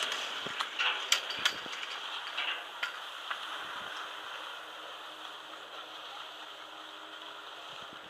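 Skis sliding over packed snow make a steady hiss. Several sharp clicks and knocks come in the first three seconds.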